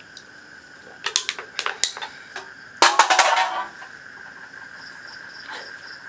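An empty aluminium drink can clattering onto concrete paving, with a few sharp knocks just before and the loudest clatter about three seconds in. A steady chirring of night insects runs underneath.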